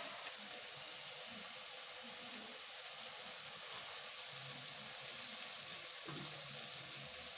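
Masala frying in a kadhai on a gas stove: a steady sizzling hiss.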